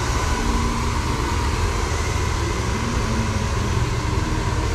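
Hand-held hair dryer blowing steadily, with a thin steady whine over the rush of air.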